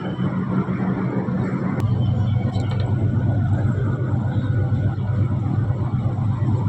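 Cement plant vertical roller mill running with a steady, loud low hum and grinding noise. Just under two seconds in, a sharp click comes and the hum settles to a lower pitch.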